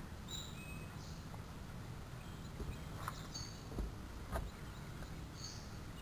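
Short, high bird chirps recurring several times over a steady low rumble of outdoor ambience, with a few sharp knocks around the middle.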